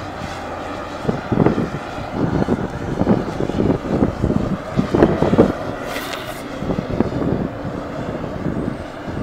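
Wind buffeting the microphone and road noise from rolling fast over asphalt, a steady rough rush, with a brief sharp hiss about six seconds in.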